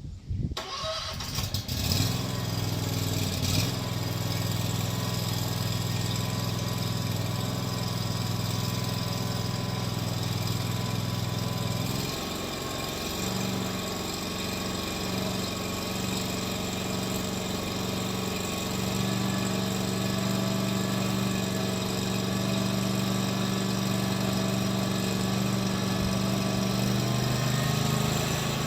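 Kawasaki FX730V V-twin mower engine starting up about two seconds in, then running steadily; around twelve seconds in its note dips and settles at a slightly different speed.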